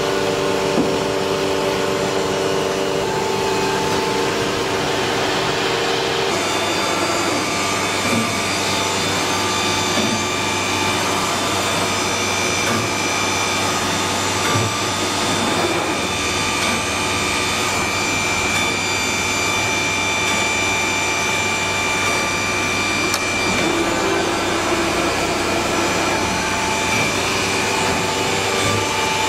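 CNC woodworking router running steadily: a high spindle whine over a machine hum and rush of air. The tone changes about six seconds in.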